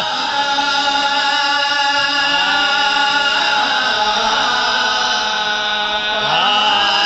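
A man chanting a devotional qasida into a microphone. He holds long, drawn-out notes and slides between pitches.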